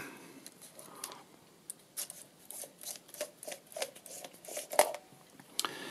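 Handling of a metal film SLR camera as its screw-mount lens is twisted off the body: a string of light clicks and scrapes through the middle.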